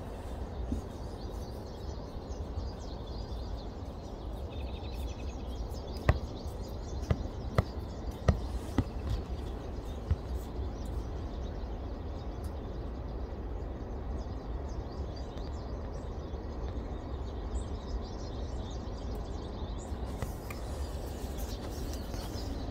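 Outdoor ambience: a steady low rumble with faint bird chirps, and a handful of sharp clicks between about six and nine seconds in.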